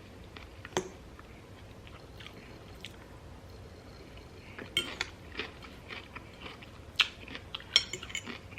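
Close-up chewing and crunching of a romaine lettuce taco salad, in scattered crisp bites: a sharp click about a second in, then clusters of crunches about halfway through and again near the end.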